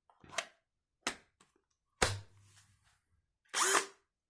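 A 20-volt battery pack is handled and slid onto a cordless brushless drill driver: a few sharp plastic clicks and knocks, the loudest about two seconds in as it latches, then a short rasping noise near the end.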